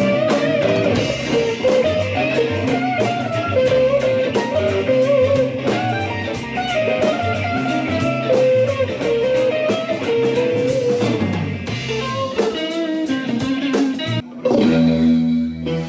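Live instrumental band playing: electric guitars and electric bass over a drum kit, with a melody line on top. Near the end the drums stop and a chord rings on.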